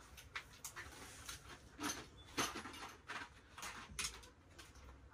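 Faint, irregular light clicks and rustles, about one or two a second.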